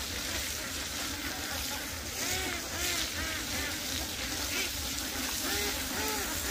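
A flock of ducks calling, many short calls rising and falling in pitch and overlapping, starting about two seconds in, over a steady hiss.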